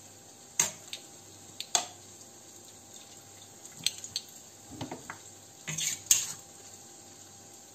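Metal kitchen tongs clinking a few times against a stainless-steel pot while cooked pig's trotters are lifted out of the broth, with dripping and soft wet sounds as they drop into a plastic basin.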